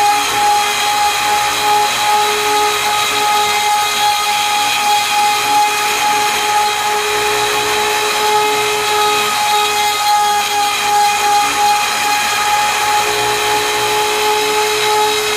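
Harbor Freight router on an MPCNC milling a helical half-inch hole in aluminum with a dull bit: a steady, high motor whine over the hiss of the cut. The bit is struggling in the hole, and the operator suspects the end of the bit may have galled up with aluminum.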